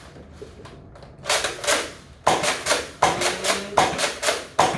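Nerf Rival pump-action blaster fired over and over, a run of sharp snaps and clacks about two to three a second that starts about a second in.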